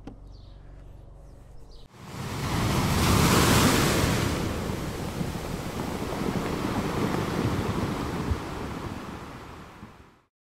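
Rushing ocean-surf sound effect that swells in about two seconds in, then slowly fades away and cuts off just before the end.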